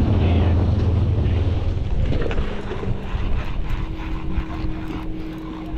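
Outboard motor running on a moving boat, with water rushing past the hull and wind on the microphone. The engine's low drone is strong at first and drops off about two seconds in, leaving the water and wind noise with a fainter steady hum.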